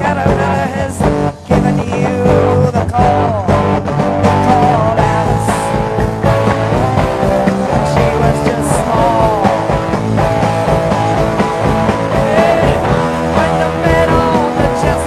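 Psychedelic rock music: a band with electric guitar, bass and drums, with a singing voice over it.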